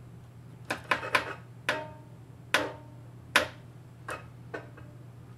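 Wooden chopstick tapping around the V3 tube socket of a powered-up Marshall JCM800 4210 valve combo: about eight sharp, irregular taps, each with a short ring, over a steady low amplifier hum. The tapping sets off the amp's intermittent fault, which the repairer traces to that socket.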